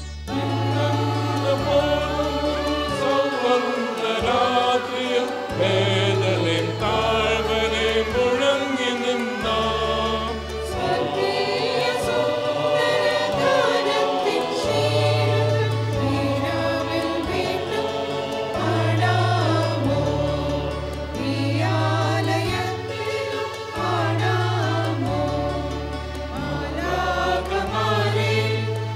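Mixed choir of women and men singing a Christmas carol, over sustained accompaniment bass notes that change every second or two.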